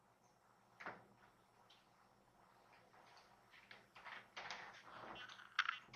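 Quiet room tone with a soft click about a second in, faint rustling toward the end, and a sharper click just before the end.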